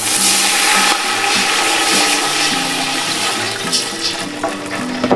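Water poured in a steady stream into a large stainless steel stockpot, splashing onto sautéed shallots and onion; the pour tails off near the end.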